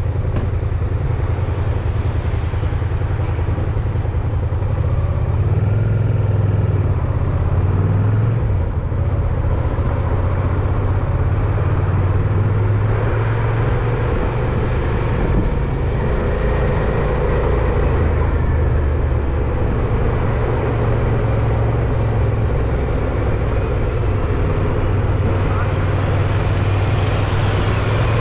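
Wind rumbling on the microphone of a moving bicycle, with road traffic running past.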